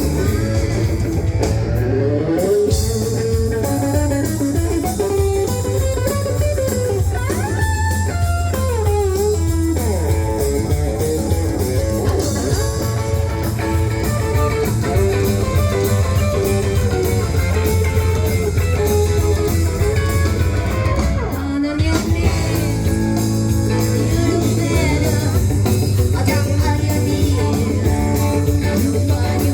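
Rockabilly band playing live: electric guitar out front over a steady bass and drums, with a brief break in the full band about two-thirds of the way through.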